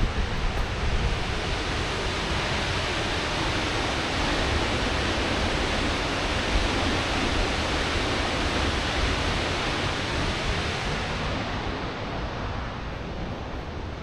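Thompson Falls, a tall waterfall, rushing steadily as an even hiss of falling water. It turns duller and a little quieter near the end.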